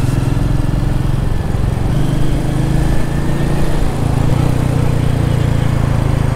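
Royal Enfield 350's single-cylinder engine running steadily at low speed in city traffic, recorded from the bike itself. Its note rises a little about two seconds in.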